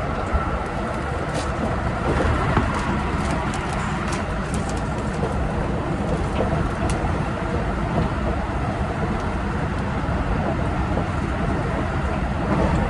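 Keikyu 1000 series electric train running at speed, heard from the driver's cab: a steady rumble of wheels on rail with sharp ticks and knocks scattered through the first half.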